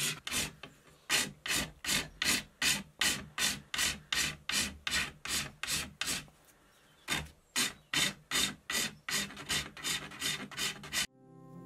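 A flat metal file rasping in repeated strokes over hardened two-part car body filler on a wooden longbow handle, shaping it: about two to three strokes a second, with a pause of about a second just past the middle, stopping abruptly near the end.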